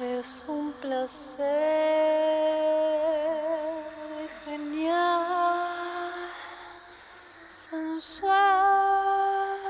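A woman singing, holding long notes with vibrato; the notes break between short phrases.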